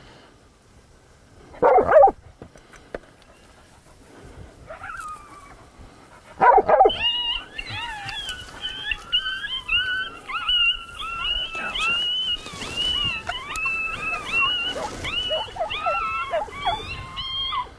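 Canine vocalising: two sharp barks, about two and six and a half seconds in, then a long unbroken run of high yips and whimpering whines.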